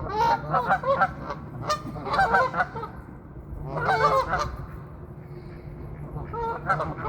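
Geese honking in four short bouts of rapid calls, each under about a second long.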